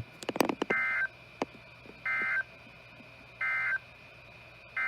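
NOAA Weather Radio Emergency Alert System (SAME) digital data bursts: three short, identical, screechy two-tone bursts about 1.3 seconds apart, the end-of-message code closing a severe thunderstorm warning. Near the end another data burst begins, the header of the next alert. A few faint clicks come just at the start, over a low steady radio hum.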